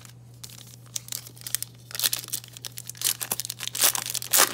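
Foil wrapper of a football trading-card pack being torn open and crinkled. The sparse crackles become a dense run of rips about two seconds in, loudest near the end.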